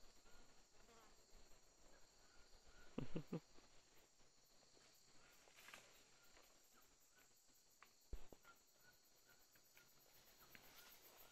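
Faint, steady high-pitched insect chorus of the rainforest, with a quick cluster of low thumps about three seconds in and another single thump near eight seconds.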